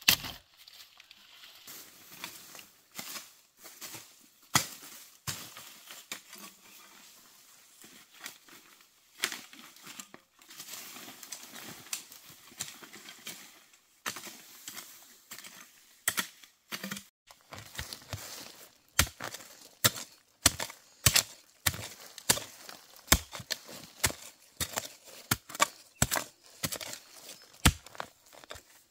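Rustling and crackling footsteps through dry leaf litter and undergrowth, then, from about halfway, a hoe striking into earth over and over, about two sharp blows a second.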